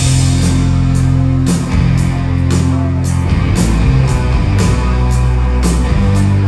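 Live rock band playing loudly: electric guitars, bass and drums come in together at full volume and carry on at a steady beat, with regular cymbal hits.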